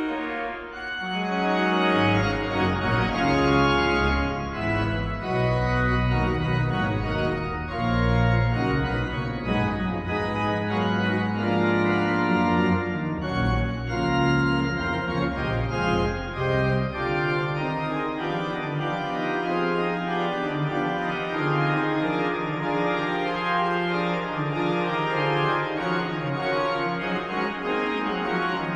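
Pipe organ music: sustained chords over deep held bass notes, the deepest bass falling away about halfway through.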